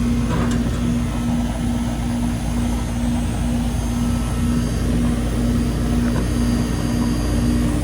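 Old air-conditioning condensing unit running: compressor and fan hum, with a low tone pulsing about twice a second over a steady rushing noise, as R22 refrigerant is let into the suction side in little spurts.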